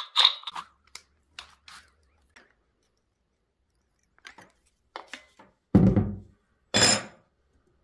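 Handling sounds of fitting a cutting disc on an angle grinder: scattered small metallic clicks and clinks as the disc and flange nut are turned by hand, then two louder knocks about a second apart near the end as the grinder and spanner are handled on the metal table.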